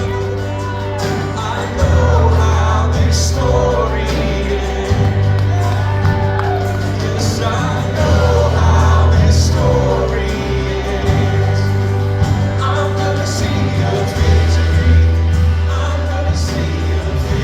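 Church worship band playing a praise song with singing over it, a heavy bass line changing note every few seconds.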